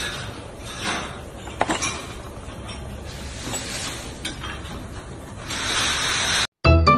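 Light clinks of porcelain bowls knocking together as a cat steps across them, over a steady hiss that grows louder shortly before the end. The sound cuts off near the end and music begins.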